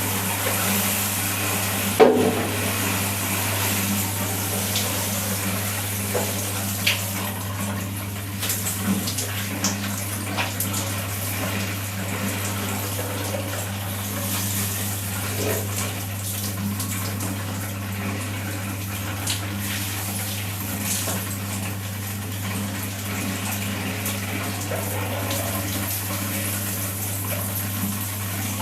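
Water running steadily in a bathroom, with scattered splashes and drips and a sharp knock about two seconds in, over a steady low hum.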